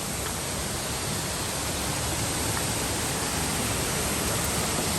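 Fast-flowing water rushing steadily, growing a little louder.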